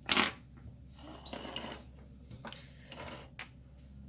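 Beaded costume-jewelry necklaces being handled: a sharp clatter of beads right at the start, then light scattered clicking and rustling as strands are moved about.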